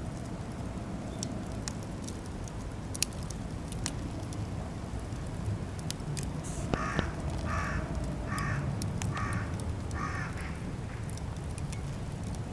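Cedar offcuts burning in a campfire, crackling with sharp pops scattered throughout over a steady low rumble. A crow caws five times in a row, starting about seven seconds in.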